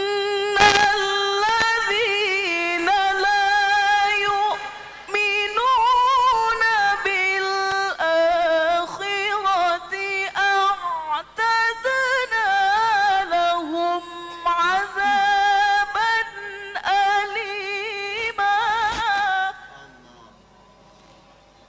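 A qari's solo melodic Qur'an recitation: one voice holding long ornamented notes that waver and slide in pitch, with short breaks between phrases. It stops a couple of seconds before the end.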